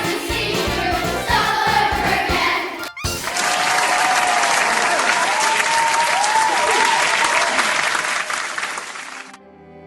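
A song with singing over a steady beat, cut off sharply about three seconds in; then a crowd clapping and cheering with a few high whoops, which stops abruptly near the end.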